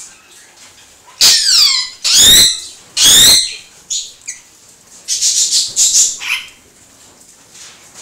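Australian king parrots calling: three loud, shrill calls about a second apart, each falling in pitch, then a quicker run of shorter calls a couple of seconds later.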